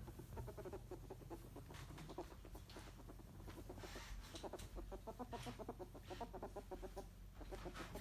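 A ferret dooking: rapid soft clucking chatter in several runs, the happy, excited sound a playing ferret makes.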